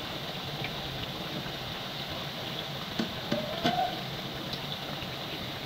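Mandazi dough pieces deep-frying in hot oil, a steady sizzle. About three seconds in, a few clicks as the wire-mesh skimmer knocks the metal pot, along with a brief rising tone.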